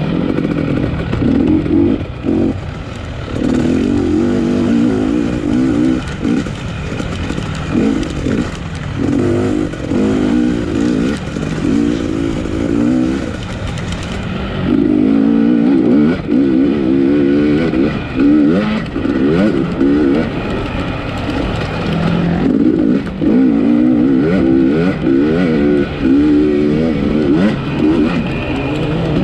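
Dirt bike engine revving hard on the rider's own race bike. Its pitch climbs and drops again and again as the throttle is worked on and off, with brief lulls where it is chopped.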